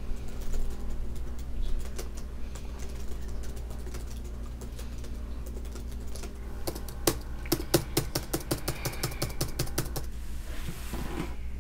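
Typing on a white MacBook's plastic laptop keyboard: scattered single keystrokes at first, then a quick, dense run of key clicks about two-thirds of the way in.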